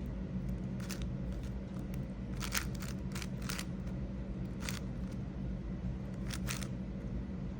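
GAN 562 M 5x5 speed cube being turned by hand: short sharp plastic clicks of the layers snapping round, in irregular turns, over a steady low hum.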